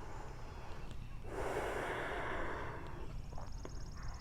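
One long audible breath out, a soft rush of air lasting under two seconds, starting about a second and a half in, during a held yoga stretch.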